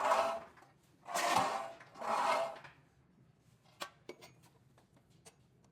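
Harsh metal-on-metal scraping with a faint squeal, three strokes in the first three seconds, as a car's disc rotor plate is worked off. A few light clicks and taps follow.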